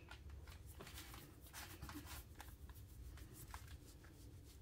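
Near silence with faint, scattered rustling of cotton fabric as a hand and a cat shift it about.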